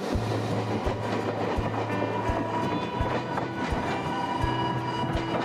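Meitetsu Mikawa Line electric train running on the track, its wheels clacking over rail joints about every 0.7 seconds over a steady hum.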